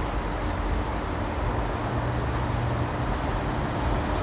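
Semi truck's diesel engine running steadily, a constant low drone with no change in pitch.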